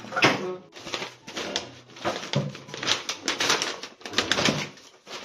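Irregular rustling and light clicking knocks of a roller blind and its packaging being handled.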